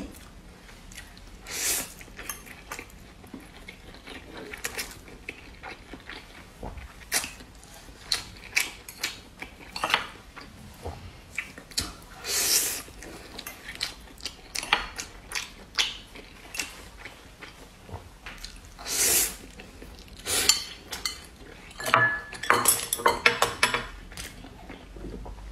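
Close-up eating sounds of noodles being slurped and chewed in short separate bursts, with a metal fork clinking against a ceramic bowl; a quick run of clinks near the end.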